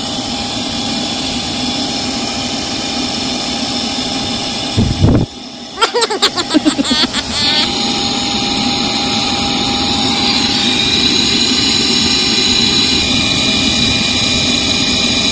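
Shop-Vac wet/dry vacuum running steadily, its motor whining and air rushing through the hose as it is used as a leaf blower. The sound breaks off briefly about five seconds in, with a couple of seconds of warbling pitched sound before the steady whine resumes.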